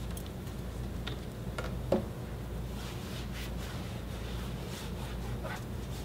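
Plastic chairs being handled and wiped down: light scuffs and faint clicks, with one sharper knock about two seconds in, over a steady low room hum.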